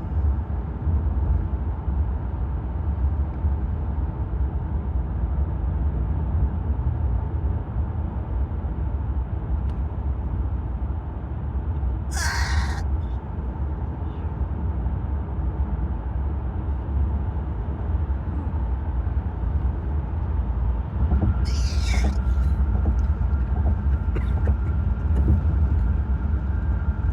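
Steady road and engine rumble inside a moving car's cabin, with two short, sharp hiccups about ten seconds apart.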